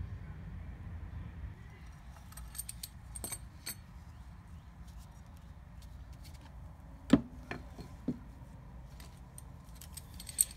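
Metal clinking and knocking as a turbocharger's compressor housing is fitted onto its cast-iron turbine housing and handled with tools on a workbench. There are light clinks, then a sharp knock about seven seconds in and a lighter one a second later.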